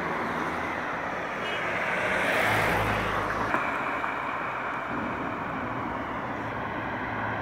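Road traffic noise on wet asphalt, swelling as a vehicle passes about two to three seconds in, then dropping back to a steady hiss.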